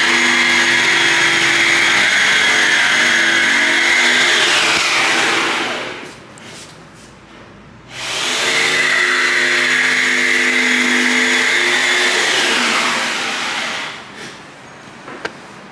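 An electric motor runs with a steady high whine for about five seconds, then winds down with a falling pitch as it is switched off. This happens twice, about two seconds apart.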